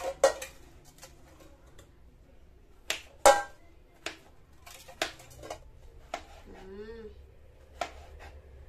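A kitchen knife chopping vegetables on a wooden cutting board: sharp, irregular knocks of the blade hitting the board, the loudest about three seconds in. About seven seconds in, a short wavering voice sound.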